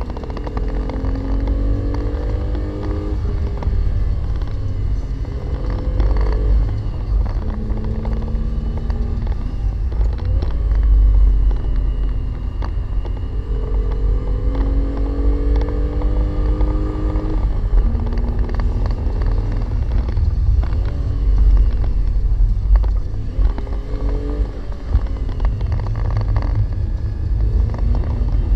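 Renault Clio V6's mid-mounted 3.0-litre V6 heard from inside the cabin under hard acceleration: the engine note climbs, drops back at each gear change and climbs again, and falls away where the car slows for corners. A constant low road rumble runs underneath.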